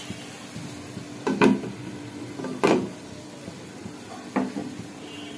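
Glass cooking lid being put onto an aluminium wok of vegetables: three short clinks and knocks, about a second in, near the middle and near the end, over a steady low hum.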